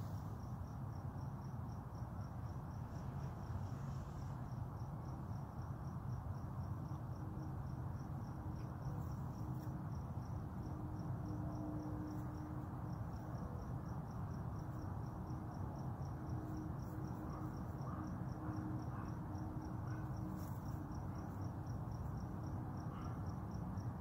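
Cricket chirping steadily outdoors at night, a high, evenly repeated chirp, over a steady low rumble.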